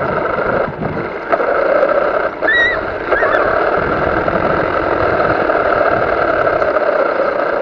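Radio-controlled car driving over gravel and then grass, heard from its onboard camera: a steady motor and drivetrain whine over tyre and chassis rumble, with a few knocks. A couple of short high chirps come about two and a half to three seconds in.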